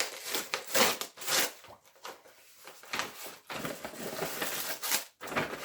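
A tracked postal envelope being torn open and its packaging rustled by hand, in a string of uneven tearing and crinkling bursts, loudest about a second in.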